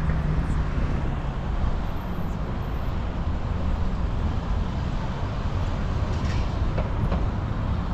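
Steady city road traffic: cars running along the street beside the pavement, an even noise that stays low and constant throughout.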